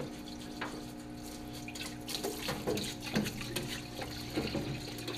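Parts washer running: cleaning solvent flowing from the nozzle and splashing over a steel steering column in the tub, over a steady hum, with a few light knocks as the column is handled.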